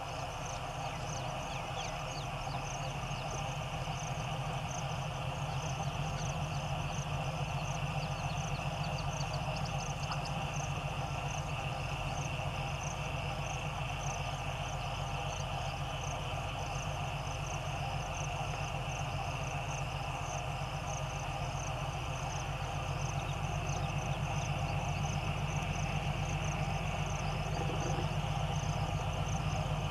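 YDM4 metre-gauge ALCO diesel locomotive's engine working under load as it pulls away with its passenger train, heard from a distance as a low, rapid throb that grows slowly louder.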